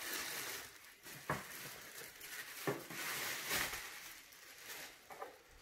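Plastic packaging wrap crinkling and rustling as it is pulled off an electric table grill's base, with a couple of sharp knocks in the first three seconds.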